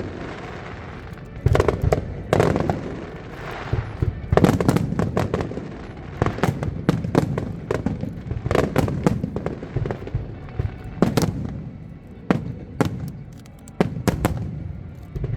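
Aerial fireworks display: irregular booms and crackling bangs, several in quick clusters, with a low rumble between them.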